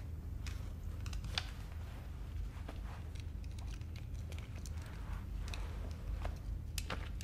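Room tone with a steady low hum, broken by scattered faint clicks and rustles, like small movements of clothing and paper at a table.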